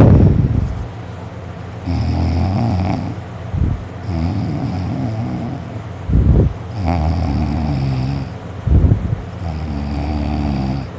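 A person snoring loudly in heavy sleep after drinking: four long snores, one about every two and a half seconds, each followed by a short sharp puff of breath.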